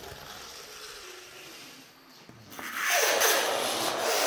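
Simple electric train, a battery with neodymium magnets, scraping and rattling along its coiled bare-wire track. The noise dies down to a quiet patch, then turns loud again a little over halfway through.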